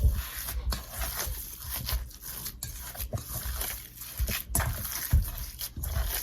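Hands mixing and kneading wet, seasoned ground beef, giving an uneven run of squishing, squelching sounds.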